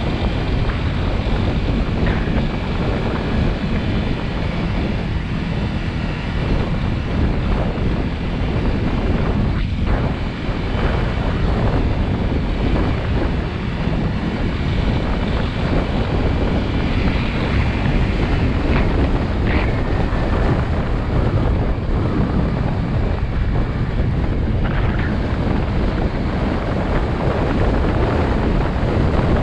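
Heavy wind buffeting on the microphone over a Honda CRF250 Rally's single-cylinder engine running steadily while riding on a dirt track.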